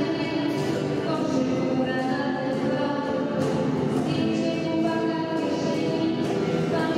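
A choir of young girls singing together, the voices holding long notes that change every second or two.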